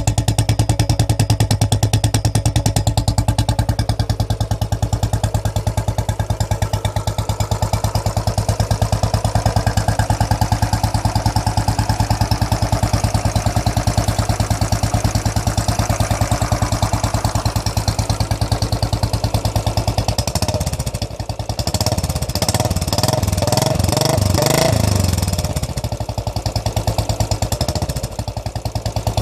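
Royal Enfield motorcycle engine idling with an even, rapid thump. About two-thirds of the way through, the revs rise and fall a few times with throttle blips, then settle back to idle.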